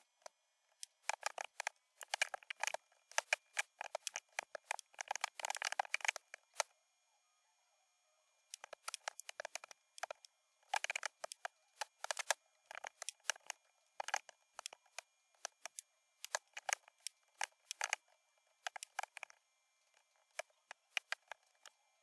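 Computer keyboard typing: rapid keystroke clicks in bursts, with a short pause about seven seconds in.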